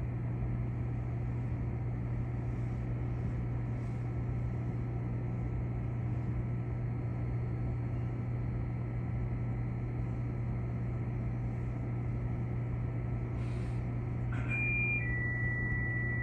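Steady low hum of a Keikyu train's onboard equipment while it stands stopped after an emergency stop for detected abnormal noise. Near the end a short electronic beep steps from a higher tone to a slightly lower one.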